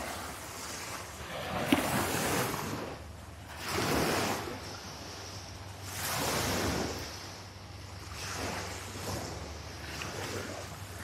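Small waves washing onto a sandy beach, the wash swelling and fading about every two seconds, with wind rumbling on the microphone. A single sharp click a little under two seconds in.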